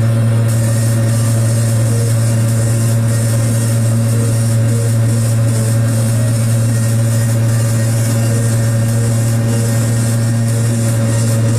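Piaggio Ape 50's small two-stroke single-cylinder engine running at a steady pitch while the three-wheeler is driven along, a constant drone that neither rises nor falls.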